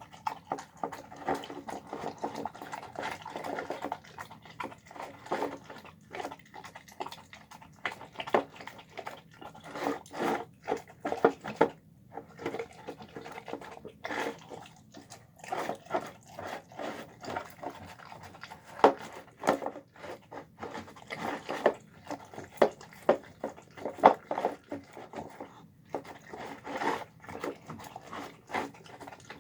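A dog eating tendons, chicken and rice: irregular chewing and licking clicks, a few of them sharper and louder.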